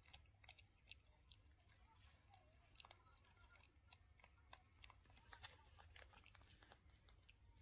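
Faint scattered small clicks and crunches of baby macaques nibbling and chewing bread, over a low steady hum.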